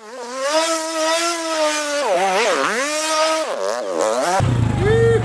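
ATV engine revving, its pitch rising and falling with the throttle, then changing abruptly about four seconds in to a steady, lower pulsing run.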